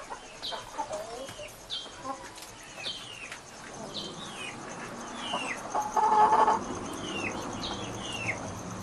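Chickens calling: short, high, falling peeps about twice a second, with a louder, lower call lasting about half a second roughly six seconds in.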